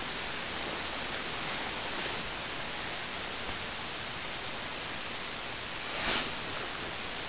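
Steady hiss of background noise, with one brief soft whoosh about six seconds in.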